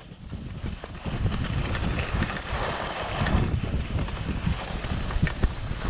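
Wind buffeting a camera microphone while skiing downhill, a low rumbling rush mixed with the hiss and scrape of skis on packed snow. It fades in over the first second.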